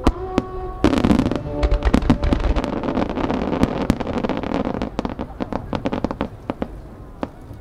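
Aerial firework shells bursting, with a heavy boom about a second in. Many sharp crackles and pops follow, thinning out and fading toward the end.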